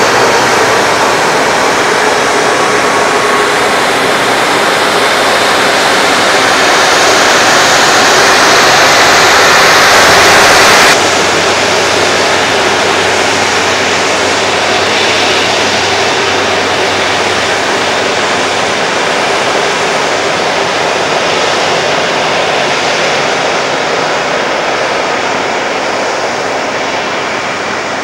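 Rolls-Royce Trent 700 jet engines of an Airbus A330-343 running at taxi power, a loud steady rush with a faint whine. It swells over the first ten seconds, drops suddenly about eleven seconds in, then fades slowly as the aircraft moves away.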